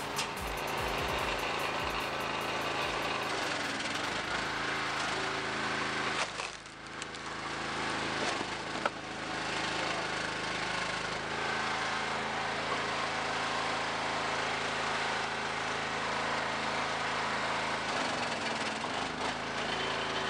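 Engine-driven hydraulic log splitter running steadily while it forces logs through a fixed blade, with the wood cracking and splitting under the engine's sound. The sound dips briefly twice and gives one sharp crack partway through.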